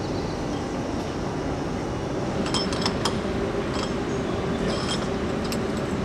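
Light metallic clinks, several in quick succession and then a few more spaced out, as a milk hose's metal coupling is fitted to a stainless bulk milk tank's outlet, over a steady machinery hum.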